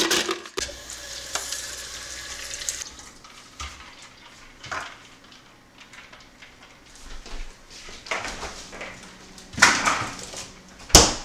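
Ice cubes tipped from a plastic ice tray clatter into a plastic pitcher, followed by a run of hiss. Then come scattered knocks and clatters of the pitcher and ice being handled, loudest near the end.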